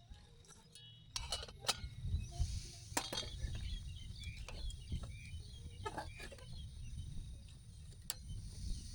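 Cookware and utensils clinking and knocking: a string of sharp clicks, over a low rumble that starts about a second in.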